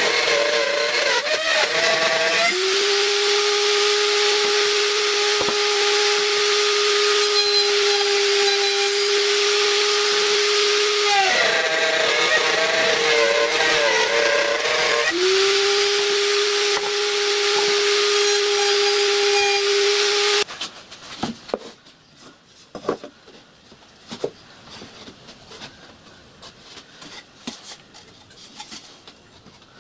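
Bench-mounted circular saw cutting OSB board. The motor runs with a steady whine, its pitch dipping and wavering twice as the blade bites into the board. It stops abruptly about two-thirds of the way through, leaving only light knocks of board being handled.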